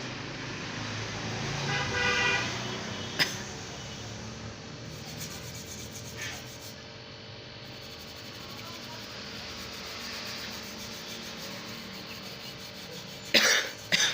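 Soft rubbing as a brush scrubs a phone circuit board with cleaning liquid, over steady street traffic with a vehicle horn tooting about two seconds in. A sharp click comes a few seconds in, and two short loud clatters come near the end.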